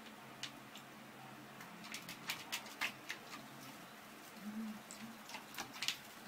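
A myna chick bathing in a plastic basin of water: a run of small splashes and taps, thickest in the middle and again near the end.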